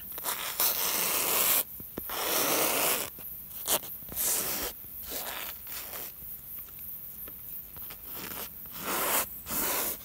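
A painting tool scraping and rubbing oil paint across a stretched canvas in several separate strokes. The two longest come in the first three seconds, shorter ones follow, and another comes near the end.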